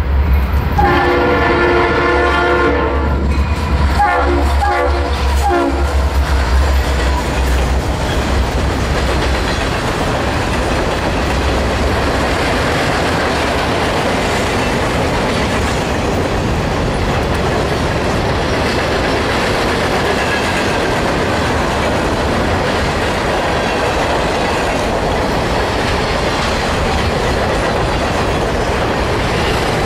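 Freight train diesel locomotive sounding its horn, one long blast then a few shorter ones, while its engine rumbles by at close range. Then the steady rumble and clickety-clack of the freight cars' wheels rolling past on the rails.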